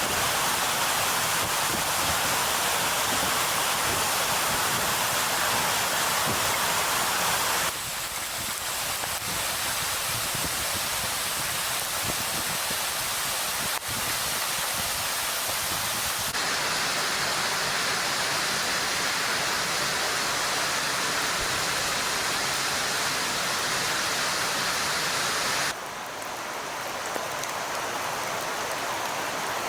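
Steady rushing noise of blizzard wind and blowing snow, an even hiss with no clear engine or voice, changing abruptly at cuts in the footage about 8, 16 and 26 seconds in.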